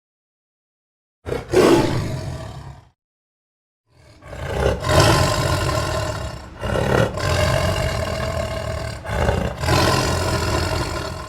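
Indochinese tiger roaring: one short roar that fades about a second in, then after a pause a long run of roars with several swells in loudness from about four seconds in.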